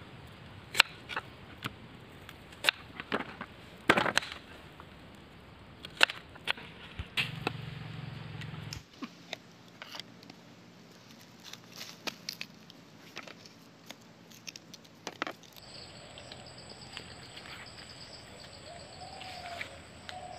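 Small kitchen knife cutting a red onion on a wooden board: irregular sharp taps and clicks as the blade goes through and strikes the wood, with a few louder strokes in the first half and smaller, closer ones later.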